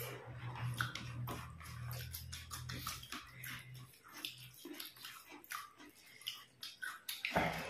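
Close-up eating sounds of two people eating rice and chicken curry by hand: wet chewing, lip smacks and squelching clicks of fingers mixing rice. A low hum sits underneath for the first few seconds, and there is a louder thump near the end.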